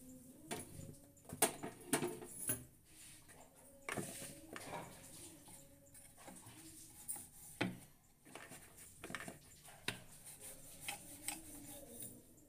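Steel kitchen utensils clinking and knocking against each other in irregular, scattered knocks, the loudest ones about a second and a half and two seconds in.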